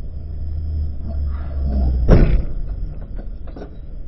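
Slowed-down dashcam audio of a motorcycle crash: a deep rumble of traffic builds, then one loud crash about two seconds in as the motorcycle hits the traffic and flips. A few clattering knocks of debris follow.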